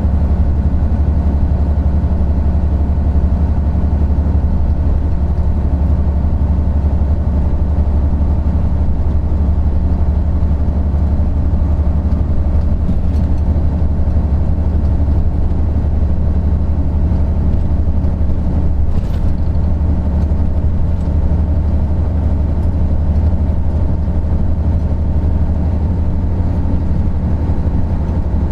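Isuzu Gala III coach's 12PE1 V12 diesel engine running at a steady, unchanging speed, heard from on board the bus. A deep, even drone, with one brief click about two-thirds of the way through.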